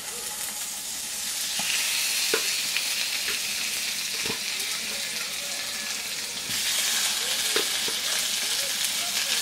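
Pieces of makayabu (salted dried fish) frying in hot oil in a non-stick pan: a steady sizzle that gets louder as more pieces go in, about a second and a half in and again around six and a half seconds, with a few light clicks.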